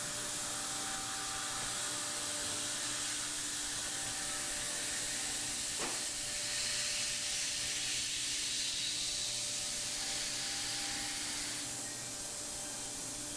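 Thermwood five-axis CNC router running through its cutting program: a steady hum with a hissing rush that grows louder about halfway through and eases off near the end, and a single short click about six seconds in.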